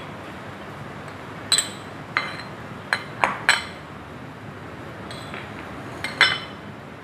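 Ceramic bowls clinking as they are moved around and set down on a stone countertop: about eight short, sharp clinks with a brief ringing, the loudest about one and a half seconds in and near the end.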